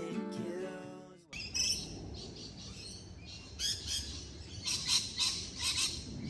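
Song music stops about a second in. Then birds chirp and call in short, repeated high bursts over a low steady rumble of outdoor ambience.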